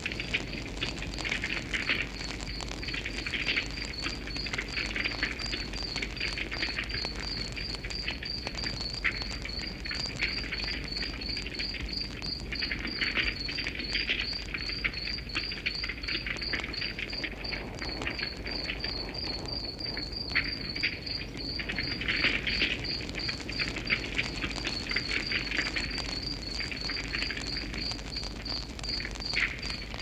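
Campfire of twigs and dry grass crackling, with scattered sharp pops, while a cricket chirps in a steady, even rhythm.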